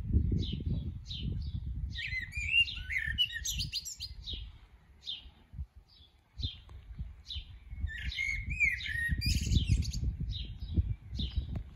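Eurasian blackbird singing: two warbled, fluting phrases, about two and eight seconds in, with short high chirps repeating between them. A low rumble runs underneath, dropping away in the middle.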